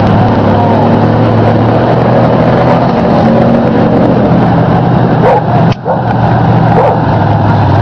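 Ford 4x4 mud truck's engine running steadily at a loud level, with a brief dip just before six seconds in.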